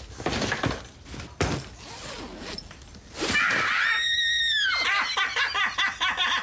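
Scattered knocks and rustling of things being handled, then a woman's single long, high-pitched scream about three seconds in, dropping in pitch as it ends. A man's laughter follows.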